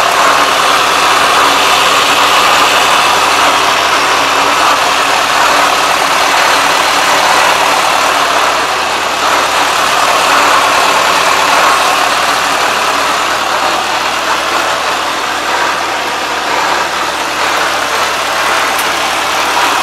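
Kubota ARN460 combine harvester's diesel engine running steadily.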